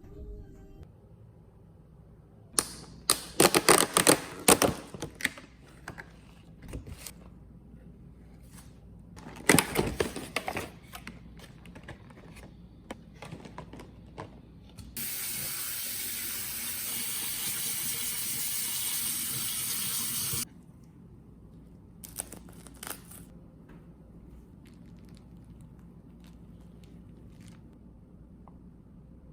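Household clatter of objects being handled, then water running from a tap for about five seconds, switched on and off abruptly, followed by another short clatter.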